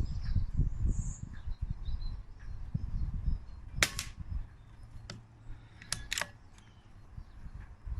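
Air rifle firing: a sharp crack about four seconds in and a double crack about two seconds later, over a low rumble.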